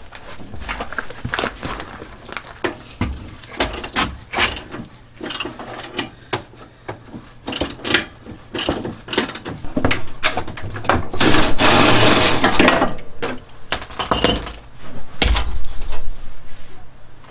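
Metal clicks and knocks of hand tools and parts as the rear two-up seat and rack assembly of an Arctic Cat 500 TRV ATV is worked loose. About twelve seconds in comes a louder stretch of rapid rattling clicks lasting a second or two.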